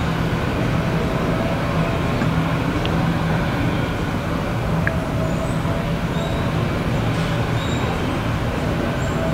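Jet airliner running on the ground: a steady drone with a low hum and a fainter higher tone, and a few short faint high chirps over it.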